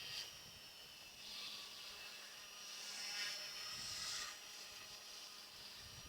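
Goosky S1 Legend small electric RC helicopter in flight: a faint, steady high-pitched whine from its motor and rotor. The whine swells and fades a few times as the helicopter moves about.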